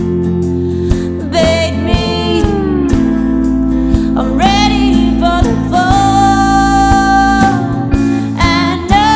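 Alt-country band playing a song: a woman sings long, held notes with vibrato over guitar and a steady drum beat.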